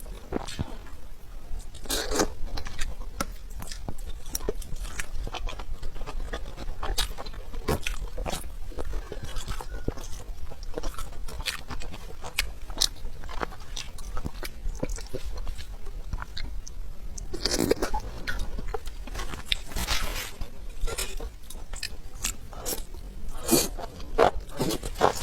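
A person eating Korean food close to the microphone: a run of crunchy bites and chewing, with louder bursts of crunching about 2 seconds in, around 17 to 20 seconds, and again near the end.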